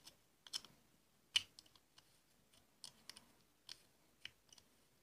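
Clip-on phone camera lens being screwed onto its clip holder: faint, irregular clicks and ticks from the threads and the plastic clip being handled, the sharpest about a second and a half in.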